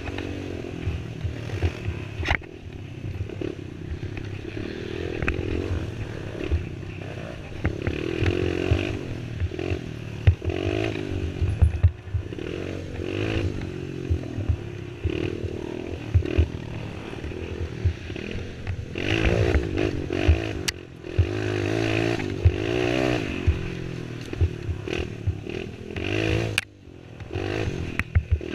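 Youth racing quad's (ATV) engine heard from onboard, its pitch rising and falling as the rider works the throttle, with clattering knocks as the machine bounces over the rough dirt trail. The engine note drops away briefly near the end before picking up again.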